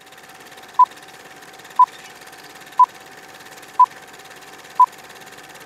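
Film-leader countdown sound effect: a short, high beep once a second, five times, over a steady projector-like hiss with a faint steady tone.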